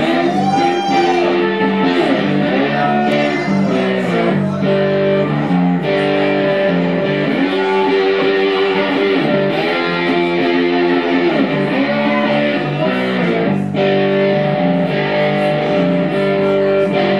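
Ibanez semi-hollow electric guitar played solo through an amplifier: a blues instrumental passage of repeating riffs, with several notes gliding up and down in pitch.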